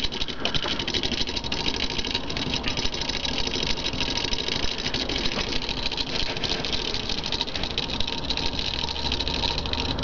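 Small homemade magnet motor running steadily, its rotor turning past a homemade reed switch made from old transformer parts and paper clips. It makes a fast, even mechanical clatter.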